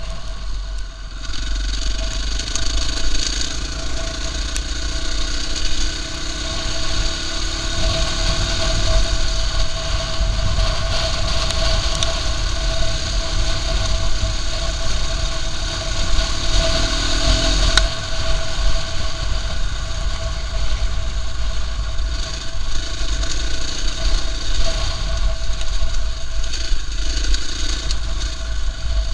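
KTM EXC-F 450's single-cylinder four-stroke engine running under way on a rough trail, its note rising and falling a little with the throttle.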